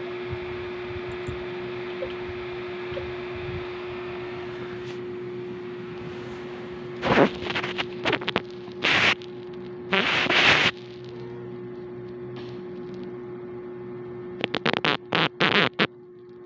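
Rustling and scraping handling noise in loud bursts: one about seven seconds in, two around nine and ten seconds, and a quick run of short ones near the end. Under it runs a steady low electrical hum.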